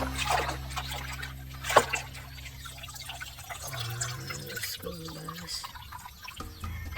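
Water dripping and trickling, with a couple of sharp clicks and small knocks, over low sustained tones.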